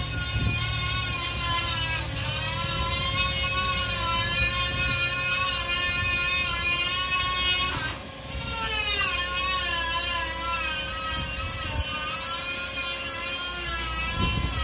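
Truck-mounted crane's hydraulics whining over the truck's running engine as the crane lowers a level-crossing signal pole, the pitch sagging and rising as the load changes. The sound dips briefly about halfway through.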